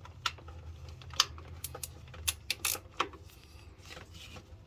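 Flex-head ratchet wrench clicking irregularly with metal tool clinks, as a starter mounting bolt is run in and snugged.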